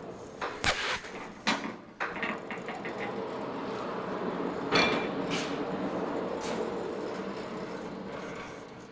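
Metal parts on a portable sawmill's head being handled: a series of clicks and knocks, several in the first two seconds and a sharper one near the middle, over a steady low hum.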